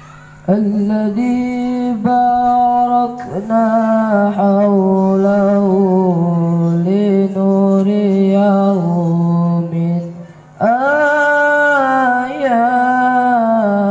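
A boy chanting into a microphone in long, held, ornamented melodic phrases, with short breath pauses and a longer break about ten seconds in.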